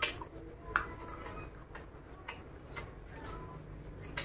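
Close-miked chewing with irregular wet lip smacks and mouth clicks from someone eating rice and raw leaves by hand; the sharpest clicks come right at the start and about a second in.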